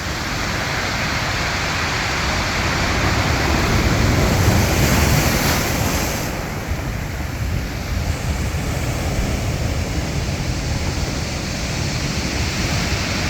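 Strong sea waves breaking and washing in, one surge swelling to a peak about five seconds in and falling away, then building again near the end, with wind rumbling on the microphone.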